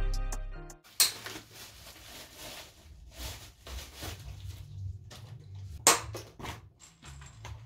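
Plastic bag and foam packaging being handled and pulled off a bike, with light rustling and a few knocks, the sharpest about a second in and near six seconds. This follows a fading tail of background music in the first second.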